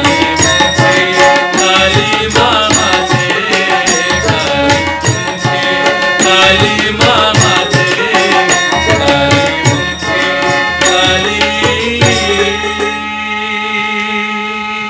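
A Bengali Shyama Sangeet devotional song: a man's voice singing over a steady hand-drum rhythm and melodic accompaniment. About twelve seconds in, the drumming stops and a held chord carries on.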